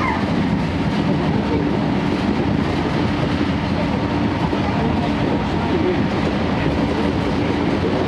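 Running noise of a 12-series passenger coach on the rails, heard inside the car, over the steady drone of the Suhafu 12 coach's own diesel generator engine.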